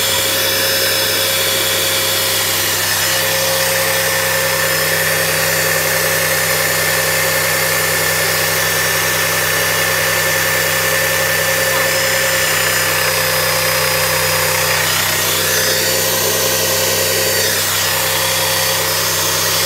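Wagner Control Pro airless paint sprayer running steadily, its electric motor and freshly resealed piston pump drawing water through on a test run.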